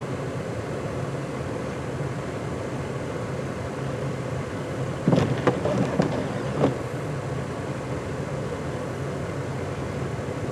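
An engine running steadily, with a handful of sharp knocks or clanks about halfway through.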